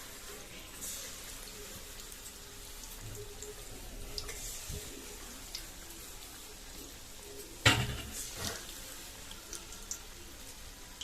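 Palm-fruit batter fritters frying in hot oil in a kadai: a faint, steady sizzle with small crackles as more batter goes in. A sharp knock comes about three-quarters of the way through, with a smaller one just after.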